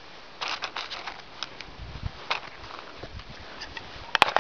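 Crinkling and crackling handling noises from a dog-treat packet being opened one-handed, with a few sharp clicks just after four seconds in.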